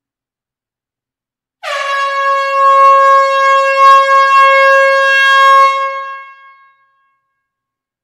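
Air horn giving one long, steady blast inside an enclosed hall, starting about a second and a half in and lasting about five seconds before trailing away.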